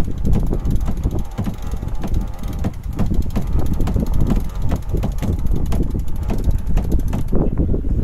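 Sailing yacht's sheet winch being cranked, its pawls clicking rapidly, over wind buffeting the microphone.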